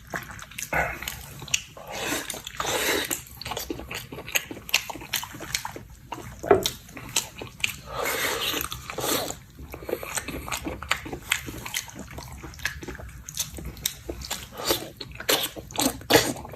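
Close-up eating sounds of pig ear being chewed: many short crunchy clicks with wet smacking.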